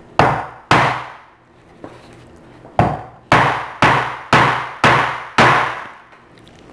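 Hammer pounding a giant boiled lobster claw wrapped in a towel on an electric griddle, cracking the shell. There are two blows, a pause, then six more about half a second apart.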